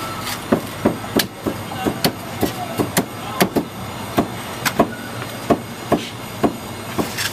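Meat cleaver chopping red-glazed roast meat on a round wooden chopping block: a quick, uneven run of sharp chops, about two or three a second.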